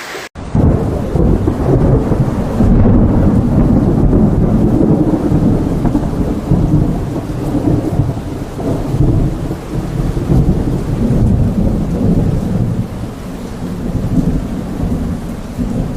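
Fast-flowing floodwater rushing, with heavy rain, heard as a loud, uneven low rumble that cuts in abruptly just after the start.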